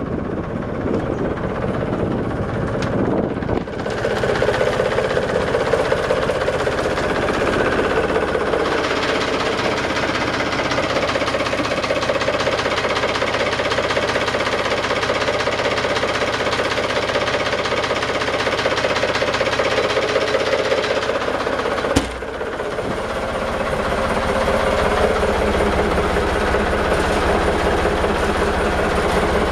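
Yamaha YD25's inboard diesel engine idling steadily. About two-thirds of the way through there is one sharp knock, and the sound drops for a moment before building back up.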